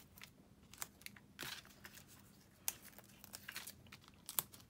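Faint rustling and crinkling of cardstock, with scattered small ticks, as adhesive foam squares are peeled from their backing and pressed onto a cardstock piece.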